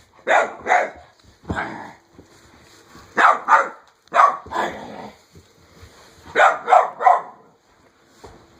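Dog barking in short bursts, mostly in quick groups of two or three, about a dozen barks.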